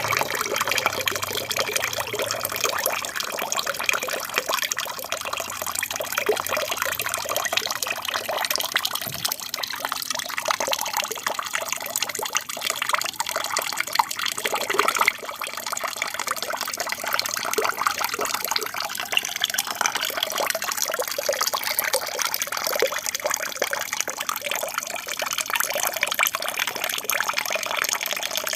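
Water from an aquarium's waterfall feature falling and splashing steadily into the tank.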